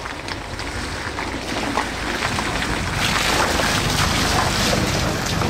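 WW2 Willys jeep's L134 four-cylinder flathead engine running warm as the jeep drives up and passes close by. It grows louder over the first few seconds, and its tyres crackle on the wet, gravelly lane as it goes past.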